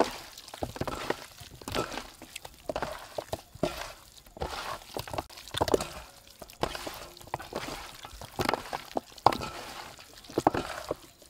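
Raw chicken wings being mixed by hand with spice powder on a steel tray: wet squishing and slapping of the meat, with irregular clicks and taps against the tray.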